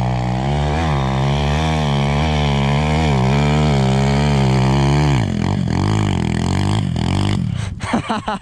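A 250 enduro motorcycle's engine is held at high revs for about five seconds, its pitch wavering. The revs then drop and run unevenly. Near the end the engine sound breaks up, with a few sharp knocks.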